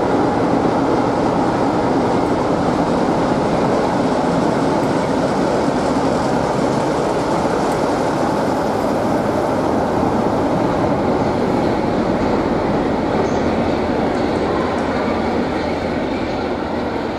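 Class 47 diesel locomotive 47501 passing close by on its own, running light, its Sulzer twelve-cylinder engine running steadily and loudly. The sound eases off slightly near the end as the locomotive draws away.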